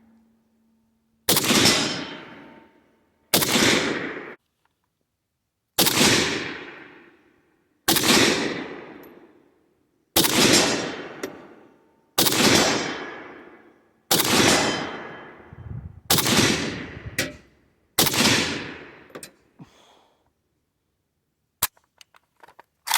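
Rifle fired nine times at a steady pace of about one shot every two seconds, each shot a loud crack with a long echoing tail. A few faint sharp ticks come between some shots, and there are small clicks near the end.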